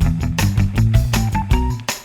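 Background music with a steady beat and a bass line, about four beats a second.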